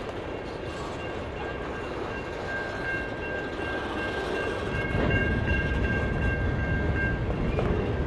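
Freight cars rolling past at a road crossing: a steady rumble and rattle of wheels on the rails, getting louder about five seconds in, with a thin high squeal held over it for several seconds in the middle.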